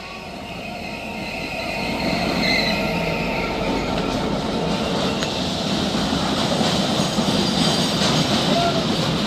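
Renfe train rolling past on the track: a steady rumble of wheels on rails with a faint high wheel squeal, swelling over the first couple of seconds and then holding steady.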